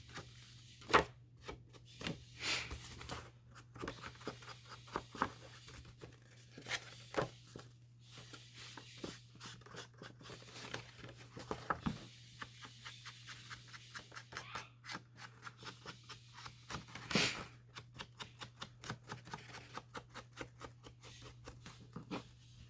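Paper and card pieces being handled at a craft table: irregular rustling, sliding and light taps, with a louder rustle about seventeen seconds in, over a faint steady low hum.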